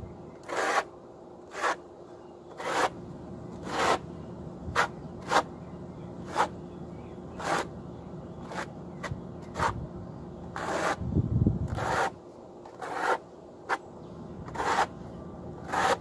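Steel notched trowel scraping and combing thinset mortar onto a concrete block wall, in repeated strokes roughly once a second. A longer, heavier stroke comes about eleven seconds in.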